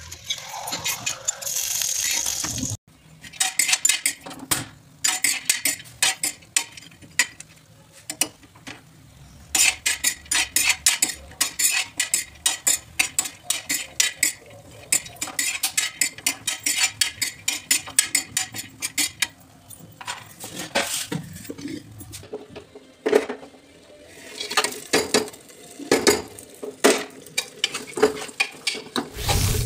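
A steel spoon scraping and clicking rapidly on an iron tawa, stirring sliced almonds and other dry fruits as they roast. Near the end the spoon knocks and scrapes more slowly in a metal pot while stirring the nuts into halwa. A hiss is heard in the first few seconds.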